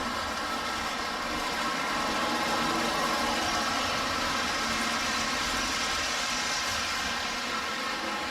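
Lionel 2368 B&O F3 diesel with two vertical motors running an O-gauge freight train around tinplate track: a steady motor hum and wheel rumble that swells a little a couple of seconds in, then eases off.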